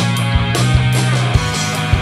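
Punk rock band playing an instrumental passage: electric guitar, bass and drums, with repeated drum hits and cymbal crashes and no singing.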